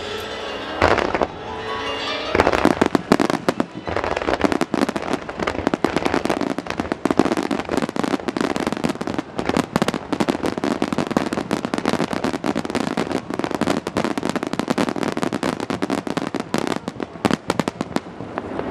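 Aerial fireworks display: one loud burst about a second in, then from about two seconds a dense, continuous crackle of many small rapid pops that eases off near the end, with music playing underneath.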